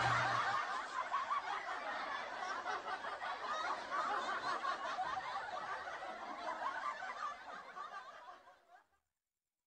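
A crowd of people laughing together, fading out gradually and stopping short about a second before the end.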